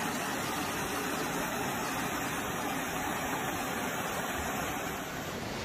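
Muddy floodwater rushing down a street: a steady, even rush of water.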